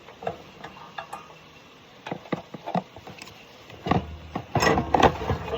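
Scattered light clicks and knocks of a lawn mower battery being worked loose by hand. About four seconds in they build to a louder clatter and thumps as the heavy battery is lifted out.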